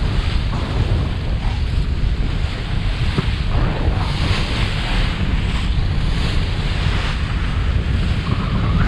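Wind buffeting the microphone with a heavy low rumble, over the hiss of waves and water rushing past the hull of a gaff-rigged wooden sailboat under sail, the rush swelling and easing.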